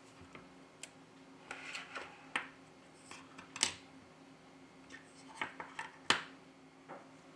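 Faint, scattered clicks, taps and light scrapes of small hand tools against an iPhone XS Max's internal parts as its logic board is lifted out of the housing; the loudest is a sharp click about six seconds in.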